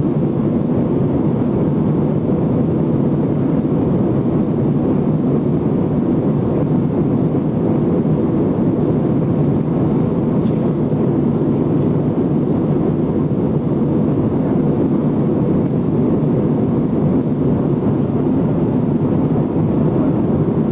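Steady low noise of a jet airliner's engines and airflow, heard from inside the passenger cabin, level and unchanging throughout.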